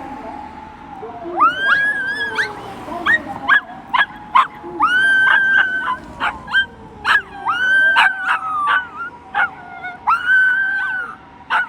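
A Chihuahua–Toy Poodle mix howling in answer to an ambulance siren: a string of long, high howls, each about a second. A miniature dachshund barks sharply in between. The siren's slow rising and falling wail is faintly heard underneath.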